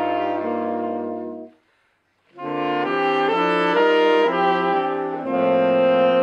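Saxophone quartet, soprano and lower saxophones, playing in close harmony: a held chord fades out about a second and a half in, there is a brief silence, then all four come back in together with chords that move note by note.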